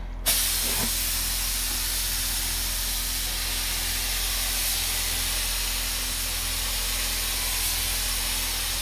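DeVilbiss SRi gravity-feed spray gun hissing steadily as it sprays water-based base coat, run at 28 psi (2 bar) through a 0.8 mm tip. The hiss starts just after the opening, with a steady low hum beneath it.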